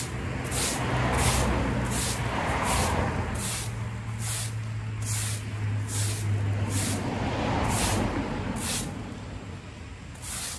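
Stiff straw broom scrubbing dirt and loose debris out of a crack in asphalt paving, in quick hissy strokes a little under two a second that stop shortly before the end. Under it, passing road traffic with a low engine drone that swells and then fades about eight seconds in.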